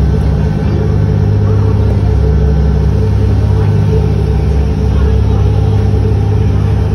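Motorboat engine running steadily under way: a loud, constant low drone with a steady hiss over it.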